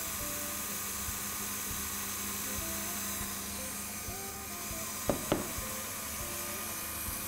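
KitchenAid Artisan stand mixer running steadily, its flat beater mixing flour into cake batter in a glass bowl. Two short knocks about five seconds in.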